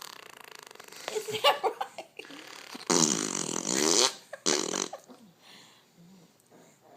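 A small child blowing raspberries, fart-like 'phhhtttp' noises made with the lips: a short one about a second in, then a long loud one and a shorter one just after it.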